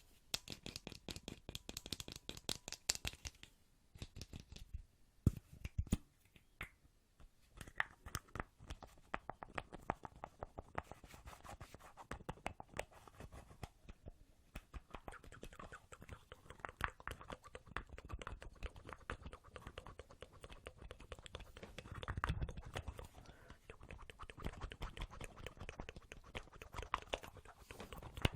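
Close-miked ASMR trigger sounds: fast, dense tapping and scratching. The strokes thin out to a few separate clicks for a few seconds about four seconds in, then pick up again.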